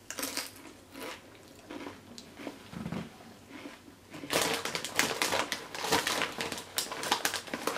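Crunchy chewing of tortilla chips, with scattered sharp crunches and mouth clicks. About four seconds in, a plastic tortilla chip bag starts crinkling and rustling as a hand digs into it.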